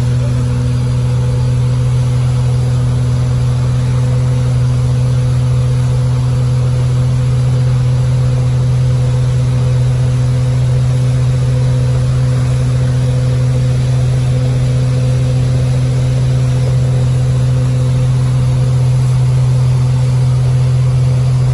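Tow boat's engine running steadily at wakeboard towing speed, a loud, unchanging drone with the rush of the wake beneath it.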